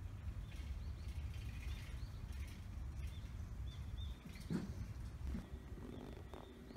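Outdoor ambience: wind rumbling on the microphone, with faint, short bird chirps repeated through the first few seconds. About four and a half seconds in there is a brief sliding sound, the loudest moment. A low steady hum comes in soon after.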